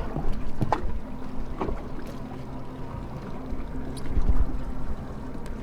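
Boat's outboard motor idling steadily, with water and wind noise and a couple of light knocks in the first two seconds.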